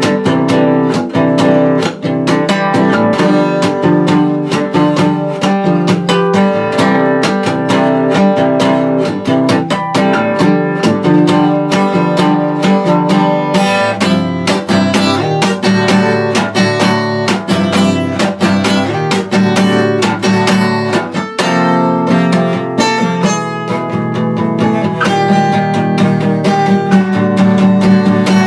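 Martin 000M steel-string acoustic guitar played without a pick, the fingers sweeping and strumming across the strings in a dense, unbroken run of notes and chords.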